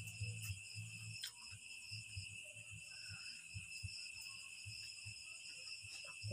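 Steady chorus of crickets, a constant high trill, with faint irregular low knocks and rustles from hands picking at food on the table.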